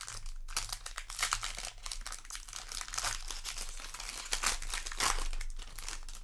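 Crinkling of a foil Magic: The Gathering booster pack wrapper being handled, with many quick crackles.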